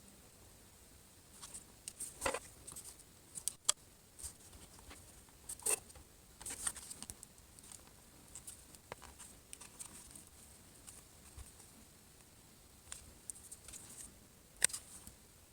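Faint, irregular clicks and scratching of hand tools prying the cracked glass screen off a Samsung Galaxy S4, with a few sharper clicks among them.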